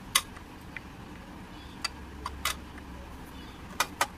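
Small hard-plastic toy toaster and toy kitchen pieces clicking and knocking as they are handled: a handful of short, sharp clicks, the loudest right at the start.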